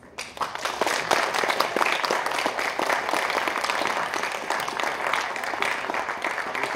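An audience applauding, many people clapping steadily.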